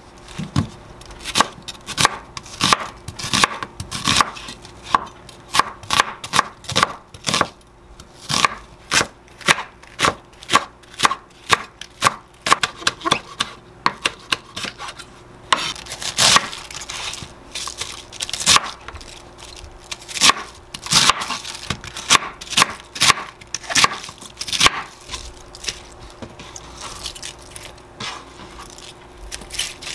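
Chef's knife chopping vegetables (onion, green onion, cabbage) on a wooden cutting board: quick repeated knife strikes on the board, a few a second, in runs with short pauses. A faint steady hum lies underneath.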